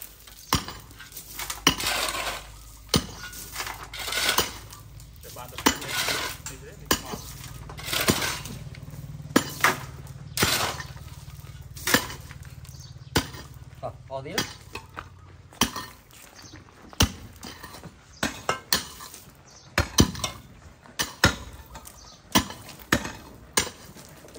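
Metal cooking utensils and pots clinking and clattering in irregular sharp knocks, as in stirring or scraping in a pot. A low steady hum sits underneath for the first two-thirds and then stops.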